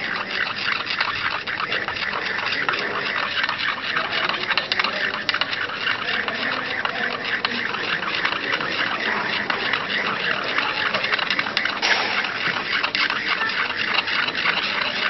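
Cold cream being stirred briskly in a porcelain dish, a fast, continuous run of scraping strokes as the water-in-oil emulsion thickens and congeals.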